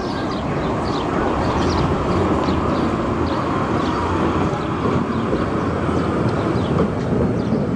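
Wellington Cable Car, a cable-hauled funicular car, running along its rails with a steady rumble that grows a little louder about two seconds in.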